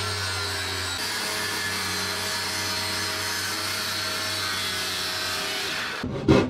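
Power saw cutting an opening out of a wooden panel: a steady motor noise with the blade rasping through the wood, stopping abruptly near the end.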